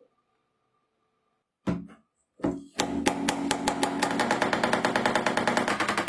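Restored vintage hand drill switched on: a short burst first, then it runs with a steady motor note under a rapid, even rattling clatter that quickens after a second or so.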